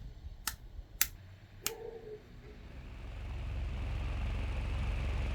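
Three sharp clicks, then a small electric motor starting and running with a steady whirring hiss over a low hum that builds up about halfway through.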